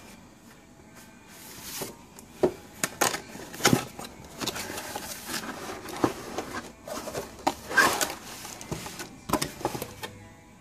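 Cardboard box being handled and opened: irregular sharp scrapes, knocks and rustles of cardboard flaps and sides being pulled open, starting about a second and a half in and stopping shortly before the end.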